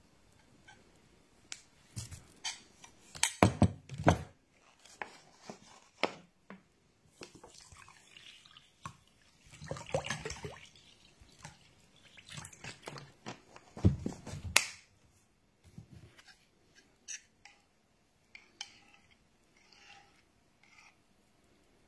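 Water poured from a plastic bottle into a bowl of garri, a splashing stream about halfway through, with clusters of sharp knocks and clicks from handling the bottle and bowl before and after.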